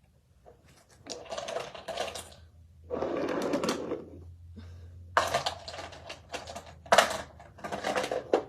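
Small glass nail polish bottles clinking and rattling against each other as they are put into a container with other polishes, in several bursts with a few sharp clicks.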